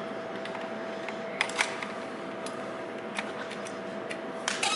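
Hard plastic spring clamps being handled and worked open, giving a few sharp clicks and clacks: two about a second and a half in and a quick run near the end. A steady background hum runs underneath.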